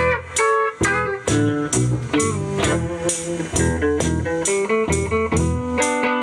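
Blues guitar playing live over a steady beat of about two hits a second and a bass line, with no singing.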